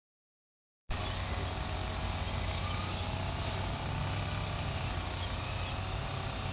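Steady outdoor background noise with a low hum, cutting in suddenly about a second in after dead silence.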